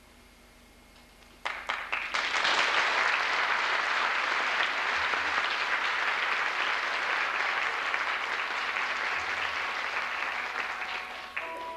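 Audience applauding. A few first claps come about a second and a half in, then full applause follows and dies away near the end as the orchestra starts again.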